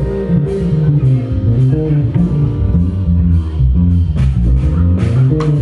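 Sandberg California electric bass guitar played live as a solo: a run of changing plucked notes in the low and middle register, through the amplification.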